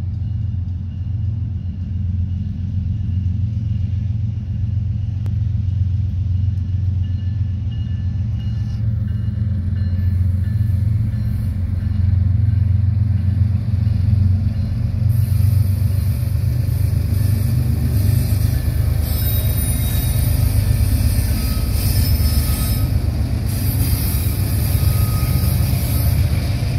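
Union Pacific diesel freight locomotives pulling an intermodal train: a deep engine rumble that grows louder as they approach and go by, with wheel and rail noise filling in about halfway through.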